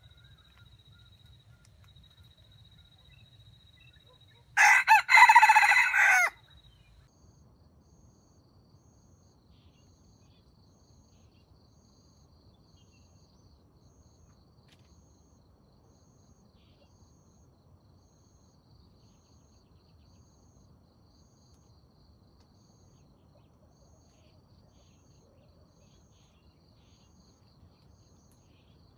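Red junglefowl rooster crowing once, about five seconds in. Insects chirring faintly and steadily underneath, with a soft pulse about once a second.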